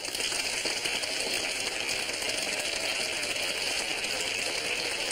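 Crowd applauding: many hands clapping in a dense, steady patter that starts right as the dance music cuts off.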